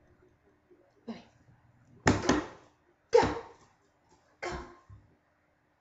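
A series of short, sharp barks, about one a second, the second one a quick double bark, in a small room.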